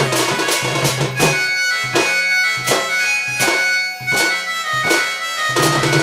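Loud folk-music accompaniment: a reedy melody held over regular sharp drum strokes. The low bass part drops out about a second and a half in and returns near the end.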